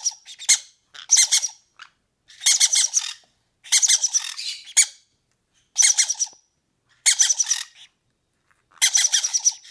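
Green-cheeked conure chicks begging to be fed: about eight short bursts of rapid, buzzy pulsed chirps, each under a second long, coming every second or so.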